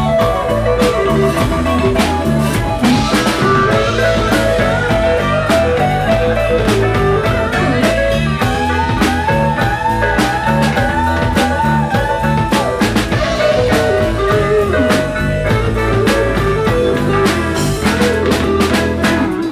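Live blues-rock band playing an instrumental break: an electric guitar takes the lead with repeated bending phrases over a steady drum beat and bass line.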